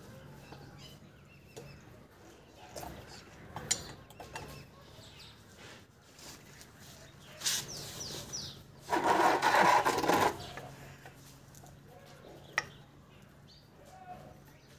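Scattered metallic clicks and knocks of a wrench working on the oil filter cover of a Bajaj Platina motorcycle engine, as the cover is loosened for an oil change. A louder rough rasping burst of about a second comes roughly two-thirds of the way through, over a faint steady hum.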